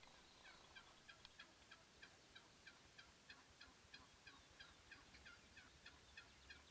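Wild turkey calling faintly: a long, even run of short calls, about three a second.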